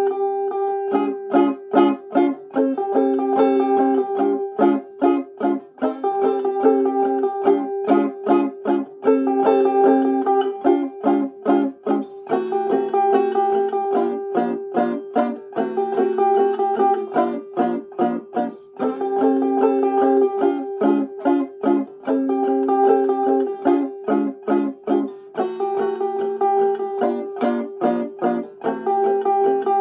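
Five-string banjo played clawhammer style: an old-time hoedown tune of quick plucked notes, with one steady high drone note ringing through the melody.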